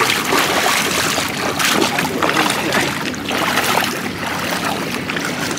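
Shallow floodwater sloshing and splashing unevenly as a push net is shoved through it by someone wading.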